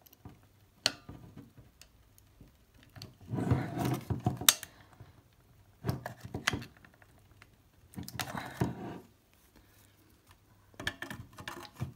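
Flat-blade screwdriver prying and scraping at the hinges of a hard plastic BottleLox bottle security cap, in short bursts of clicks, scrapes and rattles, the loudest a few seconds in.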